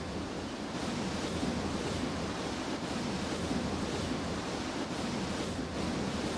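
Steady rushing wind: an even, unbroken noise with no separate events.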